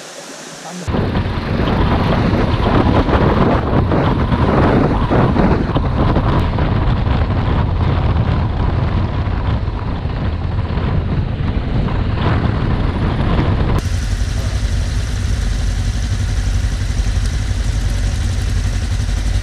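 Trail motorcycle being ridden, heard from a helmet camera: the engine runs under loud wind rush on the microphone. About 14 seconds in, this gives way to a steadier low engine rumble as several motorcycles idle together.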